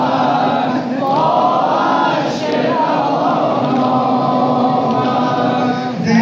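A crowd of men chanting together in a Shia mourning chant (noha), many voices overlapping with pitch rising and falling.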